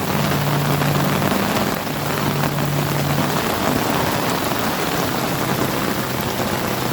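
Steady rain falling, a dense even hiss of drops hitting the ground, with a faint low hum underneath that comes and goes.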